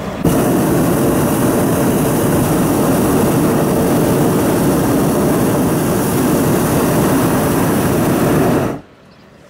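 Hot-air balloon's propane burner firing close by, a loud steady rushing blast that starts abruptly and cuts off sharply near the end.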